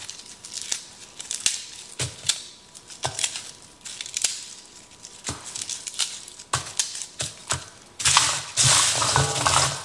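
Garlic heads being handled and sorted, their papery skins crinkling and crackling with irregular sharp cracks and rustles. Near the end a louder steady rushing noise comes in for about two seconds.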